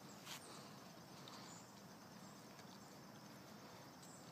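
Faint, sparse crunches of a dog biting into a piece of raw pumpkin: one sharper crunch just after the start and a couple of fainter ones about a second later, otherwise near silence.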